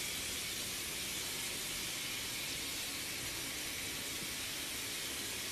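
Steady, even hiss with no other events: the background noise of a phone recording in a room.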